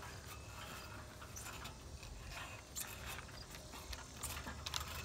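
Metal swing chains and their hangers clinking and ticking irregularly, in a few short clusters, as someone hangs from and moves hand over hand along the top bar of a swing set.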